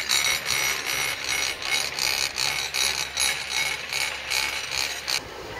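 Chairlift machinery running with an even, rhythmic clacking about three times a second, which cuts off suddenly near the end.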